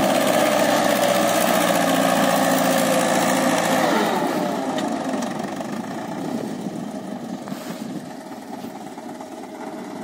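Fordson Major tractor engine running under load as it pulls a trolley heaped with soil, loud at first and then fading steadily from about four seconds in as the tractor moves away.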